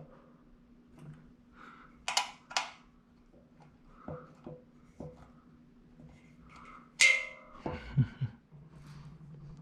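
Metal frame parts and tools handled during assembly of a plotter stand: scattered clicks and knocks, two short rattling bursts about two seconds in, and a sharp metallic clank with brief ringing about seven seconds in, followed by a couple of dull thuds. A faint steady hum sits underneath.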